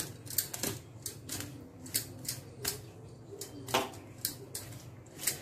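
A spoon stirring wheat flour and a little water in a glass bowl, clicking and scraping against the glass in irregular strokes, one or two sharp clicks a second.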